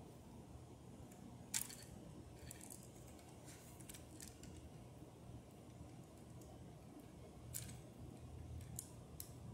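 Near silence: faint room hum broken by a few short sharp clicks, the loudest about a second and a half in and another near the end.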